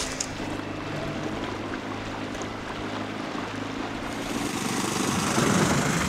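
Small outboard motor running on an inflatable boat, with a steady low drone under the rush of water and wind. The rush grows louder near the end.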